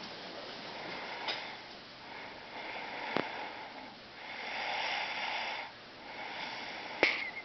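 A sleeping person snoring: slow, noisy breaths that swell about four seconds in and again near the end. A few sharp clicks are heard, the loudest near the end.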